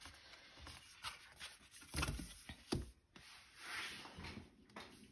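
Paper sticker book being handled and flipped open: faint rustling of the paper sheets, with a few soft taps about two and three seconds in and a short rustle of the pages past halfway.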